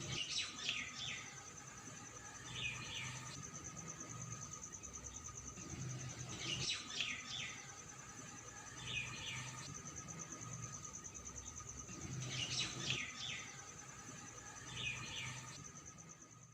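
Birds chirping in short bursts over a steady high insect buzz, the same pattern of calls recurring about every six seconds like a looped nature ambience; it fades out at the end.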